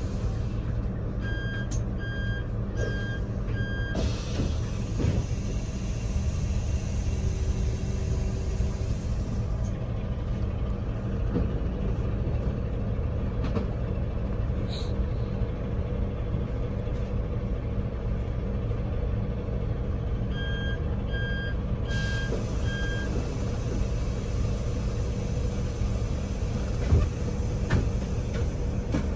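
Steady engine and road rumble inside a moving vehicle, broken twice by a set of four short electronic beeps.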